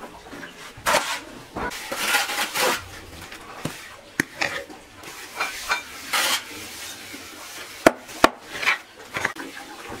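Things being handled by hand: irregular scraping and rubbing with scattered knocks and clinks, two sharp clicks about eight seconds in.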